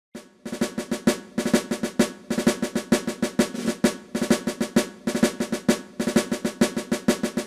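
Intro music built on a rhythmic drum pattern of rapid snare and bass-drum strikes, starting about half a second in.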